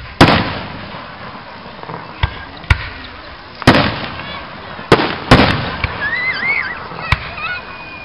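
Aerial fireworks shells bursting overhead: about six sharp bangs at irregular intervals, each followed by a short rumbling tail.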